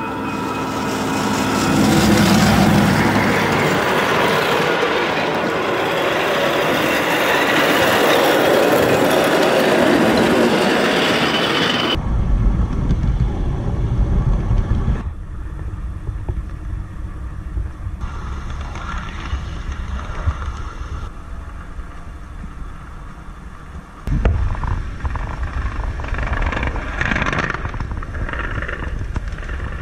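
A 7.5-inch-gauge ride-on miniature train running on its track: a loud rush of wheels on rail as it comes close, swelling about two seconds in, then a steady low rumble and clatter of the wheels from low on the moving cars.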